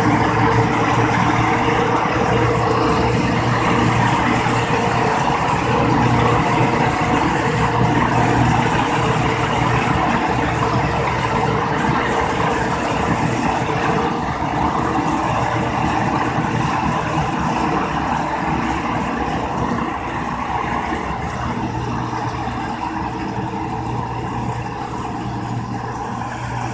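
Ford 5880 tractor engine running steadily under load while driving a straw chopper, whose chopping and blowing of straw adds a dense rushing noise over the engine hum. The sound grows slightly quieter over the last several seconds.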